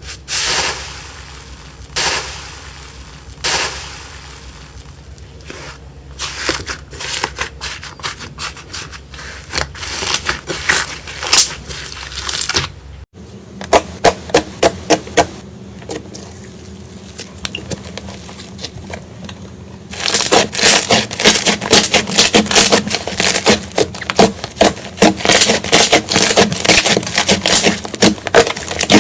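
Slime being pressed and worked by hand, giving strings of sharp crackles and pops. A few single loud snaps come in the first seconds, the sound changes abruptly about halfway through, and in the last third the crackling turns dense and loud.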